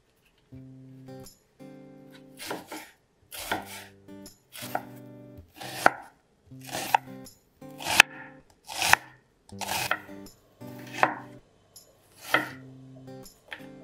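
Chef's knife slicing a peeled onion on a wooden cutting board: about ten cuts, roughly one a second.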